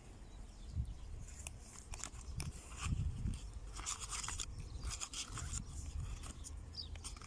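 Scattered rustling, scraping and clicking, strongest from about two seconds in, over a low steady rumble.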